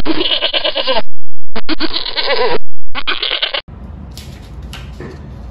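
Goats bleating: three loud, wavering calls in quick succession that stop abruptly about three and a half seconds in. A faint room sound follows.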